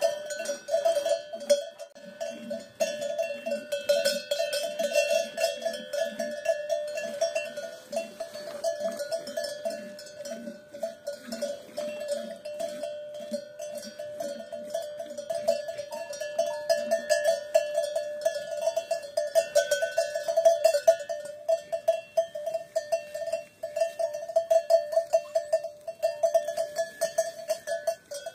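Cowbells on grazing cattle clanking continuously, a rapid ringing metallic jangle.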